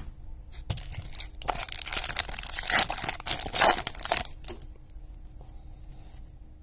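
Foil wrapper of a 2021 Topps Series 1 baseball card pack being torn open and crinkled by hand. The crackling starts just under a second in, is loudest around the middle, and dies down after about four and a half seconds.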